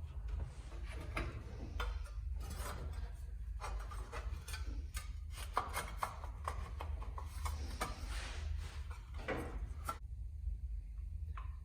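Hands and tools working on a cart's battery cables and wiring: scattered clicks, light knocks and rubbing scrapes over a steady low hum.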